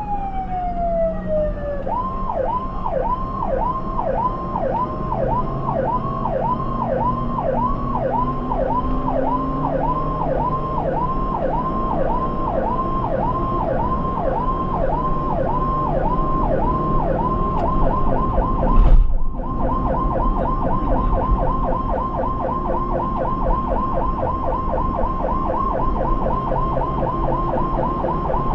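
Ambulance's electronic siren, heard from inside the cab. The tail of a falling wail gives way to a rapid yelp sweeping up and down about twice a second, which quickens to three or four sweeps a second past the middle. About two-thirds through there is a brief thump and the siren drops out for a moment, with low engine and road noise underneath.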